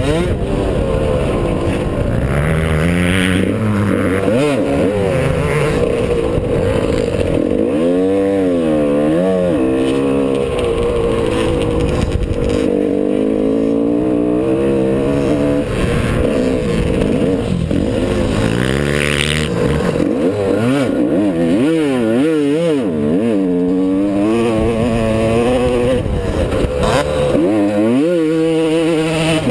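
Yamaha YZ125's single-cylinder two-stroke engine, heard on board, revving up and dropping back over and over as the bike accelerates, shifts and slows, its pitch sweeping up and down repeatedly.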